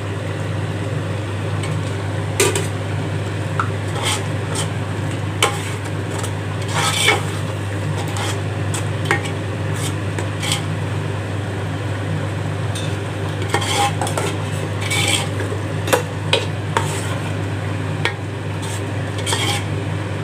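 Perforated steel skimmer ladle stirring yogurt into a sizzling masala in a metal pot, with irregular scrapes and clinks of the ladle against the pot, over a steady low hum.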